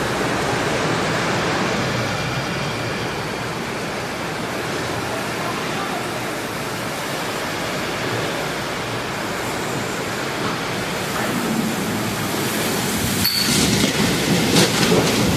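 Heavy rain pouring down in a windstorm: a steady, dense rushing noise. Near the end there is a brief break followed by a few sharp clicks.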